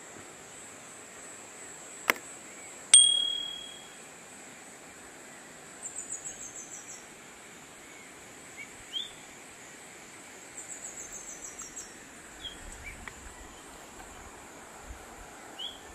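Steady high insect drone, with a sharp click about two seconds in. About three seconds in comes a bright metallic ding that rings out for about a second. Later there are two quick series of short high falling notes and a few brief bird chirps.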